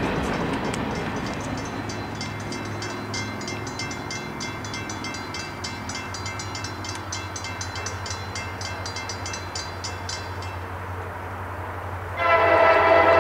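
Train noise fading away, then a steady low hum with rapid high ticking, until about a second before the end, when a diesel locomotive's chime air horn sounds loudly, a chord of several notes. The horn belongs to the lead unit of an approaching CSX freight, an SD70AC.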